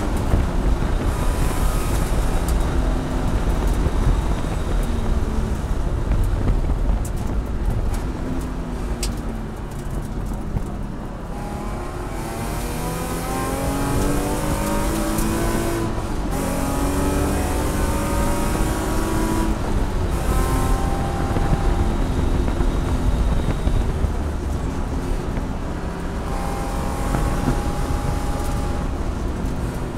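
Race car engine heard from inside the cabin, running hard at high revs through a lap. The revs fall off with the engine quieter about ten seconds in, then climb again, with a gear change about sixteen seconds in, and keep pulling.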